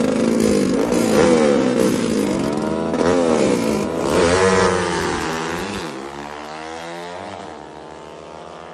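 Drag-racing motorcycles with 57 mm big-bore engines revving hard, over and over, at the start line. They then accelerate away, and the engine sound fades steadily over the last few seconds.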